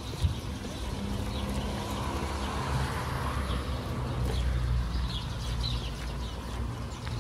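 Small birds chirping repeatedly in the trees over a steady low outdoor rumble, with a single sharp knock just after the start.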